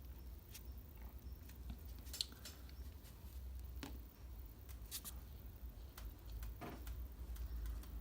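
Faint, scattered clicks and handling sounds of a fuel-line union being screwed by hand into the port of a Facet electric fuel pump, over a low steady hum.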